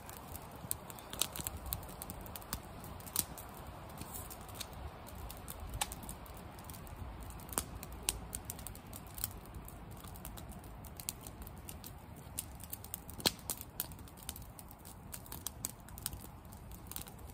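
Wood campfire crackling, with irregular sharp pops and snaps, a few louder than the rest, over a low steady rush.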